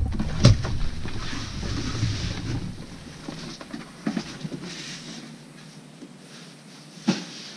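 Nylon backpack being handled and set down on a table, its fabric rustling, with a sharp thump about half a second in. Lighter knocks follow as a cardboard box is pushed aside, with one more knock near the end.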